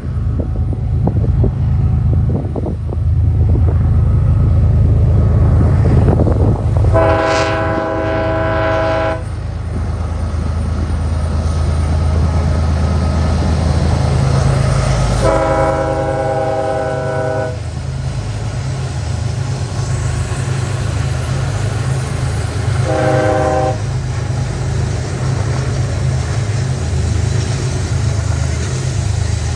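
Diesel freight locomotives passing close with a heavy low rumble, sounding a multi-chime air horn: two long blasts of about two seconds each, a short one, and another beginning at the end. After the second blast the rumble takes on the rhythmic beat of freight cars rolling by.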